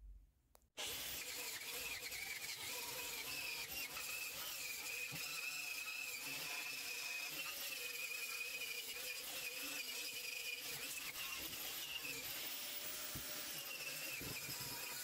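Electric angle grinder running steadily against the car's underbody sheet metal, with a wavering high whine. It starts about a second in. The metal is being ground clean so that reinforcement plates can be welded on.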